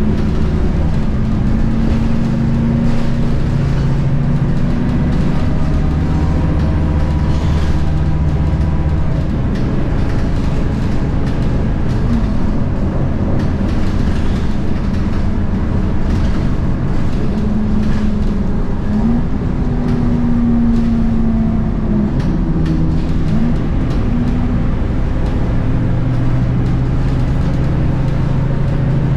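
Scania K230UB bus's 8.9-litre Scania DC9 diesel engine and ZF Ecomat 6HP502C automatic gearbox, heard from inside the passenger cabin while the bus is driving. The engine note holds steady, then shifts pitch abruptly a few times, around the middle and again about two-thirds through, as the gearbox changes gear.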